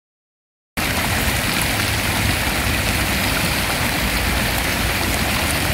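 Fountain jets spraying and splashing into the basin: a steady rush of falling water that starts abruptly about a second in, with a low rumble underneath.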